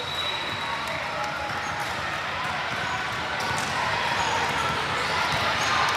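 Basketball game in a gym: a ball bouncing on the court, with voices in the background.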